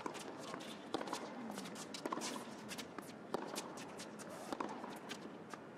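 Tennis serve and rally on an indoor hard court: four sharp racket strikes on the ball a little over a second apart, with the players' shoes scuffing and squeaking on the court between shots.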